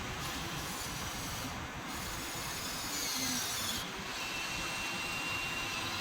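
Small electric gear motors of a 1/14-scale Huina 1593 RC excavator whirring under a steady hiss, with a high whine that dips in pitch about three seconds in and then holds steady.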